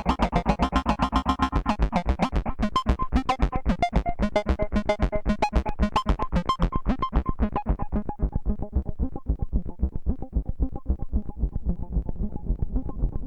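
Moog Matriarch analog synthesizer playing a fast, even run of short repeating notes over a steady low pulse. From about eight seconds in, the bright top end falls away and the notes turn darker and duller.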